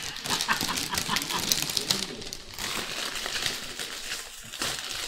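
Plastic chip bag crinkling and crackling as it is handled and pulled open.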